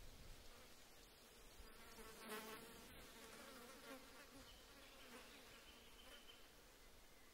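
Near silence, with a faint insect-like buzz that swells briefly about two seconds in.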